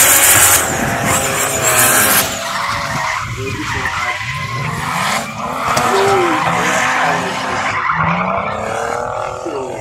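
Drift car engines revving hard, the pitch repeatedly rising and falling, with loud tyre screech in the first couple of seconds as a car slides sideways through the corner.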